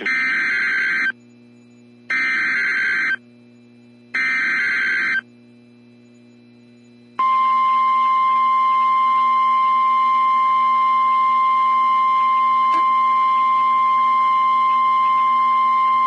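Emergency Alert System activation on NOAA Weather Radio. Three identical one-second bursts of screechy SAME digital header data come two seconds apart. About two seconds later the Weather Radio warning alarm sounds: one steady, loud tone held for about nine seconds, announcing a Special Marine Warning for a snow squall.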